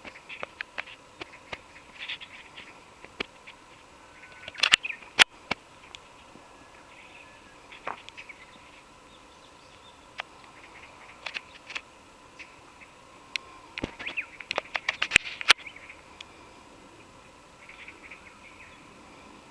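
Birds chirping on and off in short scattered calls, busiest about five seconds in and again around fourteen to fifteen seconds in. A few sharp clicks stand out, one about five seconds in and two around fifteen seconds in.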